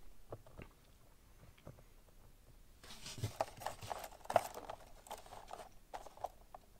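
Small clicks, taps and rubbing as a micro RC crawler and loose rubber tires are handled and stacked on a wooden tabletop. Sparse and faint at first, busier from about three seconds in.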